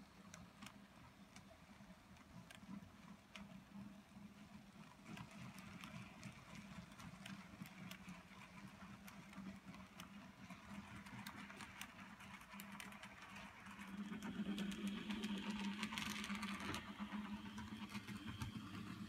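N gauge model trains running on the track: a faint steady motor hum with light, irregular clicking of wheels on the rails, getting louder about fourteen seconds in.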